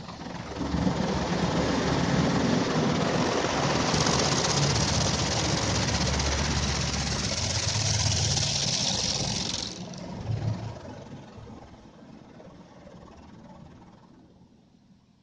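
High-pressure water jets of a touchless automatic car wash blasting the car, heard from inside the cabin as a loud, hissing rush over a low rumble. The spray cuts off suddenly about ten seconds in, gives one short burst, and then fades out.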